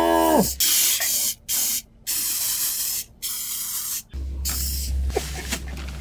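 Aerosol can of Lysol disinfectant spray hissing in four short bursts, each up to about a second long with brief gaps, sprayed inside a car's cabin. A shout falling in pitch tails off about half a second in.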